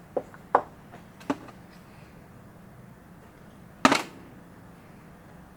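Engine parts being handled during assembly: a few light clicks and knocks in the first second and a half, then one louder, sharper knock about four seconds in.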